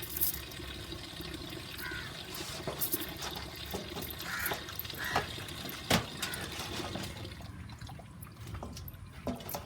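Water splashing and trickling as raw chicken is washed by hand in turmeric water, with scattered clicks and knocks and one sharp knock about six seconds in.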